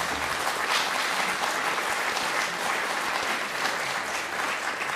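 Audience in a lecture hall applauding at the end of a keynote talk, a steady round of clapping from many hands that starts suddenly and fades out near the end.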